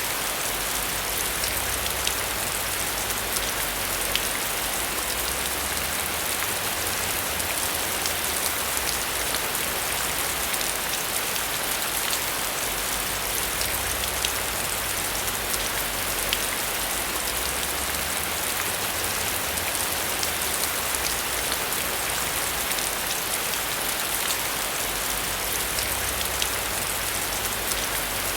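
Steady heavy rain: a dense, even hiss of falling water with countless individual drops ticking through it, over a low rumble that swells and fades every few seconds.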